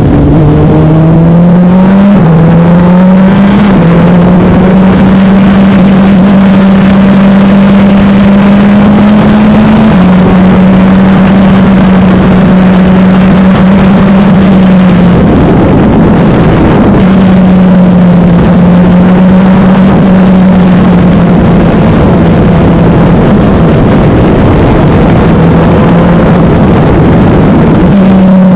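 Wolf GB08 race car's engine heard from on board, very loud and held at high revs, its pitch climbing and then stepping down at gear changes, with a brief lift around the middle.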